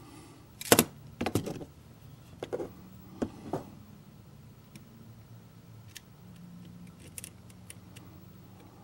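Pliers being picked up and worked against a plastic model passenger car body: a few sharp clicks and knocks in the first four seconds, the loudest about a second in, then lighter scattered ticks.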